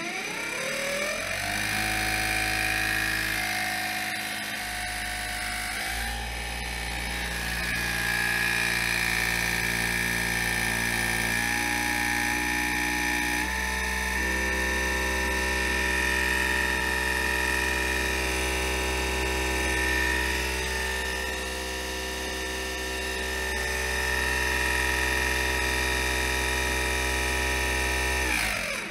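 A 2,000 W 48 V e-bike hub motor driving an old outboard's lower-unit gears and propeller, running in air with a steady electric and gear whine. It winds up at the start and then holds steady, shifting speed in steps about 6 and 13 seconds in. It settles near 2,200 rpm at the prop, which the builder calls the sweet spot.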